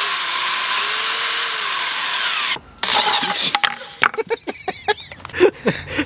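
Power drill boring through a steering-wheel short hub, a steady high-pitched grinding that cuts off abruptly about two and a half seconds in. After a short gap there is a brief burst more of drilling noise, then scattered clicks and knocks.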